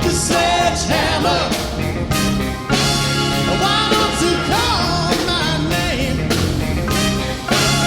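Live rock band with a horn section playing a steady beat, with a singing voice over it.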